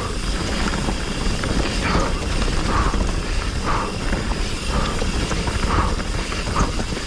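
Commencal Meta HT hardtail mountain bike descending a rough, chunky trail at speed: steady wind rush on the microphone with the tyres rumbling over the ground and the bike clattering.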